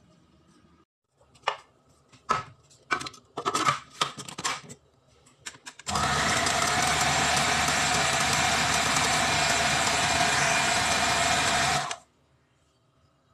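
Plastic knocks and clicks as a food processor's bowl and lid are fitted. About six seconds in, its motor starts and runs steadily for about six seconds, chopping the ground pork mixture, then cuts off abruptly.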